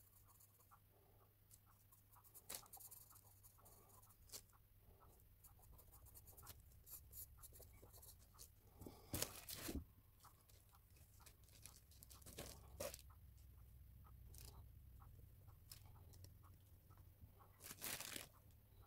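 Faint scratching of a carbon pencil on hot-pressed paper, then the rustle and scrape of a kneaded putty eraser being worked and dabbed on the drawing, with louder scrapes about halfway and near the end. A low steady hum lies underneath.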